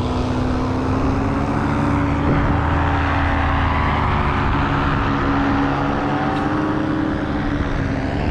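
A motor engine running steadily, its pitch drifting gently up and down.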